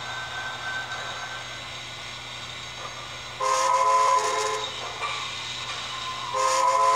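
Sound-equipped HO-scale model of a New York Central J-1 Hudson steam locomotive blowing its chime steam whistle twice, two blasts of a bit over a second each, the second starting near the end; the whistle is triggered by the layout's computer automation.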